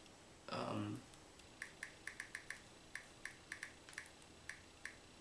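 Faint key-tap clicks from a Samsung Galaxy Tab E's on-screen keyboard while account sign-in details are typed: about fourteen short, light ticks at an uneven pace, starting about a second and a half in. A brief spoken word comes just before them.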